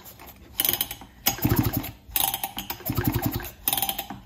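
Recoil starter of a Husqvarna 272XP 72cc two-stroke chainsaw pulled several times in quick succession, turning the engine over by hand with a rapid ratcheting clatter on each pull. The rebuilt engine turns over freely, with no binding or odd noises.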